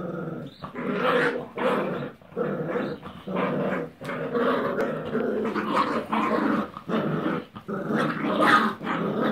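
Fox terrier puppies growling in play as they tug at a rag between their teeth: a string of growls broken by brief pauses.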